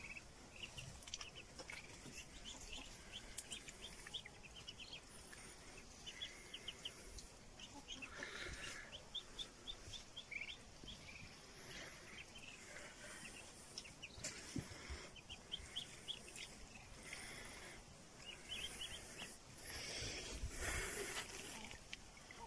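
Muscovy ducklings peeping: many short, high peeps in quick runs, with a louder stretch of noise near the end.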